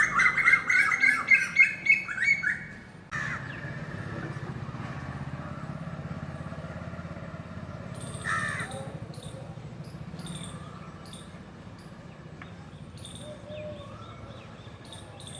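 Birds calling loudly in a rapid string of harsh, repeated calls for the first three seconds, which cut off abruptly. After that a steady low background hum carries on, with one loud call about eight seconds in and scattered faint chirps.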